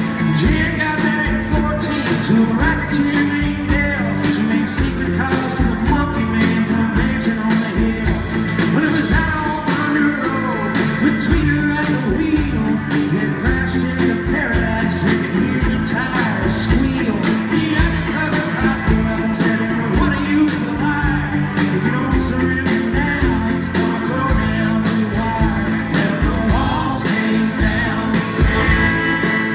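A rock band playing live with a lead singer: electric and acoustic guitars, electric bass, keyboards and drums, with a steady drum beat under the vocals. Recorded from the audience.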